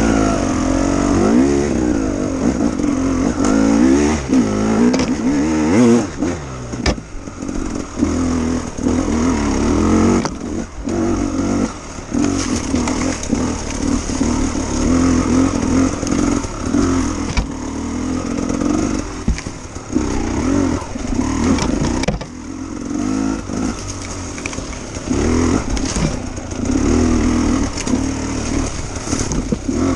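KTM 300 two-stroke enduro motorcycle engine working hard off-road, its revs rising and falling constantly. The throttle is cut briefly many times, giving short dips between bursts of revving.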